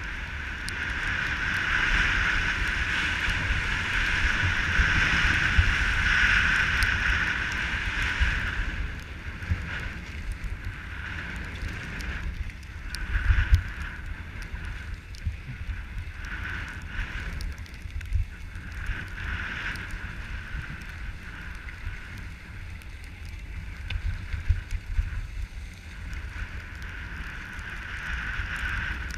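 Wind rumbling on an action camera's microphone during a ski run, with skis hissing and scraping over groomed, packed snow. Louder for the first eight seconds or so, then uneven, with a brief loud bump about thirteen seconds in.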